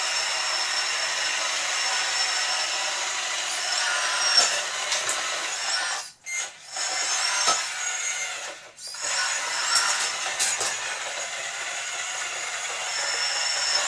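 Kabolite K966 RC wheel loader's electric hydraulic pump and drivetrain whining and buzzing as the model drives and works its bucket. The sound stops briefly twice, about six and nine seconds in.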